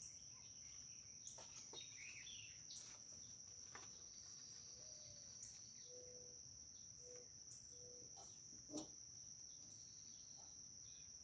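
Crickets trilling steadily in the background, at a low level. A few faint clicks come through, with one louder click about nine seconds in.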